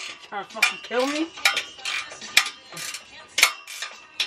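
Sharp metallic clinks and clanks of hand tools and metal parts being handled under a car, single strikes about a second apart, with a short vocal sound about a second in.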